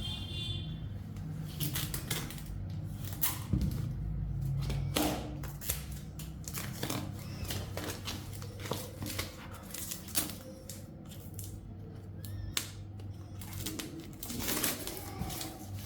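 Scattered, irregular clicks and light taps over a steady low hum.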